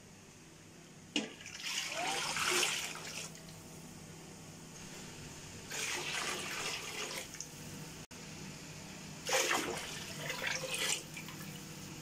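Water poured from an aluminium pot into a large cooking pot of oil and fried onions, three pours in a row, each a few seconds of splashing and gushing.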